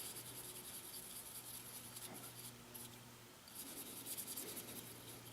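Faint rubbing and light scratching on a small steel knife blade, as etching acid is worked over it with a fingertip, pausing briefly in the middle. A low steady hum runs underneath.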